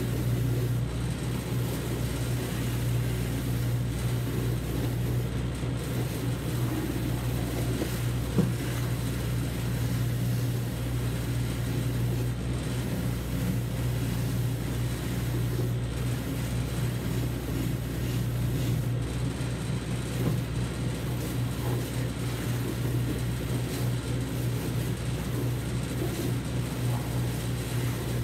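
Shoe finishing machine running, a shoe held against its spinning brush wheel to polish in wax: a steady motor hum with the hiss of the brush on the leather.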